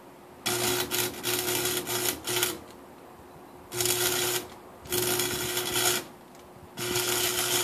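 Electric arc welder crackling and buzzing in four short runs, the first broken by brief stops. It is welding a nut onto the sheared head of a Torx main bearing cap bolt in a seized Nissan V6 engine block.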